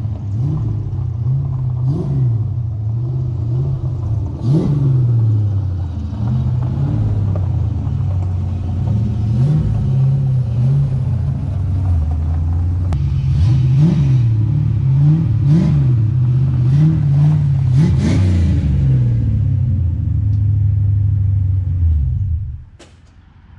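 Car engine running and being revved over and over, its pitch climbing and falling every second or two; it cuts off suddenly near the end.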